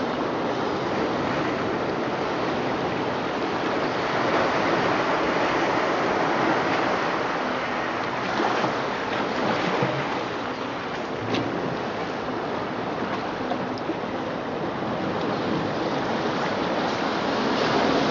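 Recorded ocean surf: a steady wash of waves, the ocean sound that plays through speakers built into the sculpture.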